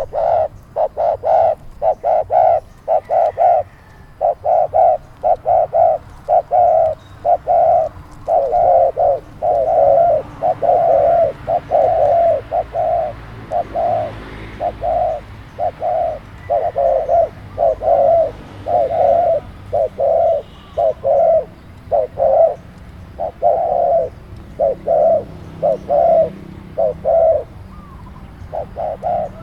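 Dove cooing close by, loud short coo notes repeated in quick runs with brief pauses between them.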